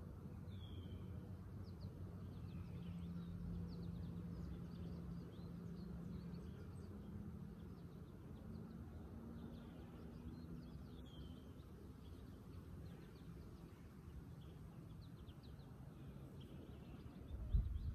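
Quiet outdoor ambience: small birds chirping faintly in the distance, with a short falling call twice, over a low steady hum.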